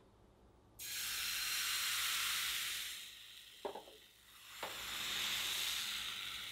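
Crepe batter sizzling as it is poured into a hot oiled ceramic-coated frying pan over a gas flame and swirled thin. The sizzle starts suddenly about a second in and eases off as the pan is tilted. It picks up again after two light knocks of the pan on the burner grate.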